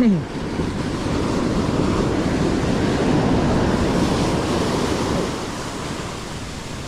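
Ocean surf washing onto a beach: a wave builds about a second in, rushes for a few seconds, then eases off.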